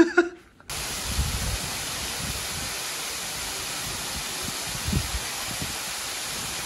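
Small ornamental garden waterfall pouring over rocks into a pool: a steady rushing hiss, with a few low bumps.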